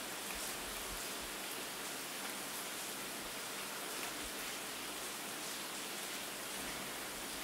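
Steady rain falling: an even hiss with faint scattered drop ticks and a few soft low thumps.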